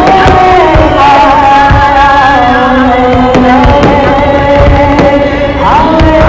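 Music: a chanting voice holds long notes that slide up and down in pitch over a steady drone. Irregular deep thumps sound underneath.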